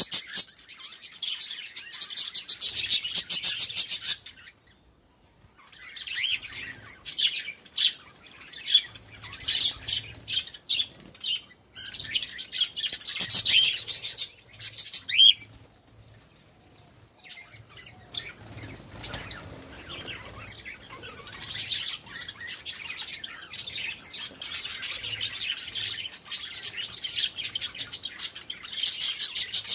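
A flock of budgerigars chattering and warbling, a dense stream of fast chirps with two brief lulls.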